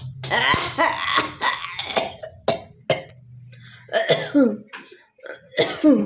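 A woman coughing hard and clearing her throat in a string of separate harsh, forced coughs, some with a falling voiced groan in them.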